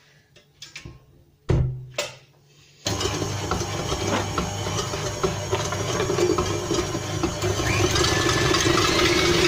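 KitchenAid tilt-head stand mixer: a few clicks and a loud clunk as the mixer head is lowered onto the bowl, then about three seconds in the motor starts and runs steadily, the wire whisk beating a chilled chocolate and cream mixture.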